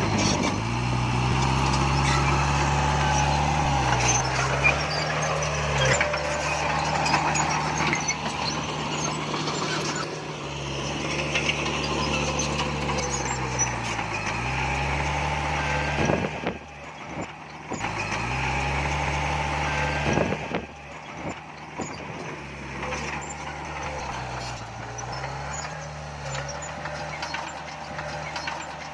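Heavy diesel engine of earth-moving machinery running under load, its pitch dipping and recovering several times as it labours. The sound breaks off abruptly a little over halfway and picks up again.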